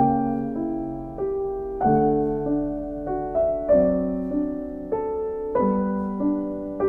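Background piano music: slow notes and chords, each struck and then fading, over a bass line.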